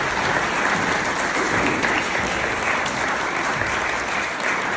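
Audience applauding steadily in a large hall, a dense patter of many hands clapping.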